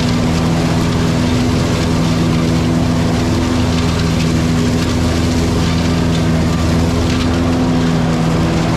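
Cub Cadet Ultima ZTX zero-turn mower's engine running at a steady speed as it drives along a trail, an even, unbroken drone.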